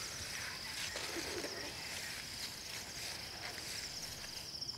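Insects chirring steadily in a high, fast-pulsing trill, with a few faint soft rustles underneath.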